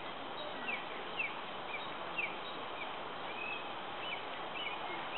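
A small bird chirping in short, quick falling notes every half second or so, over a steady outdoor hiss.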